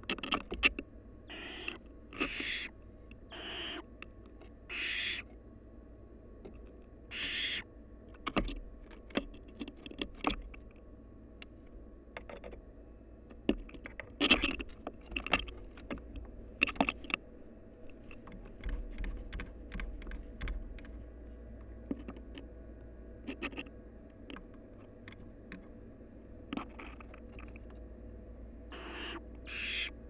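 Barn owls in a nest box giving a dozen or so short, raspy hissing calls at irregular intervals. Many sharp clicks and scratches from the owls moving right against the microphone come between them.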